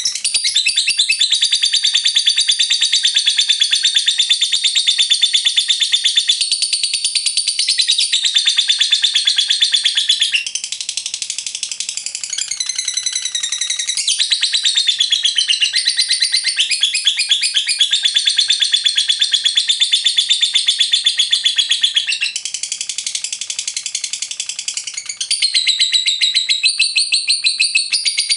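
Lovebird ngekek panjang: a long, unbroken, rapid high-pitched chattering trill, shifting its pitch pattern several times.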